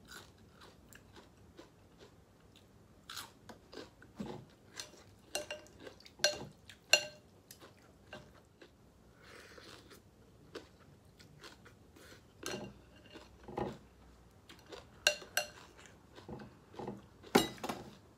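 Close-up eating sounds of a bowl of pho with meatballs: wet chewing and mouth smacks, with a few sharp clinks, and a short hissing slurp about halfway through.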